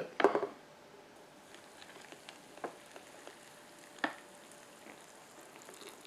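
Hot water poured from a glass electric kettle onto dry instant noodles in a paper cup: a faint, steady pouring with a few light clicks.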